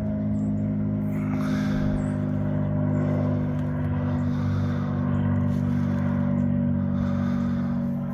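Steady low drone of an engine or motor running at constant speed, with no change in pitch.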